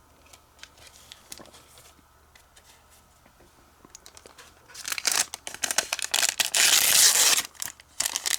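Light clicks of cards being handled, then, about five seconds in, packaging crinkling and tearing loudly for about three seconds as the pack of art cards is opened.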